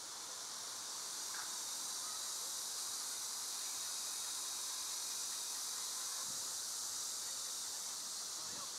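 A chorus of insects droning steadily in a high, even hiss.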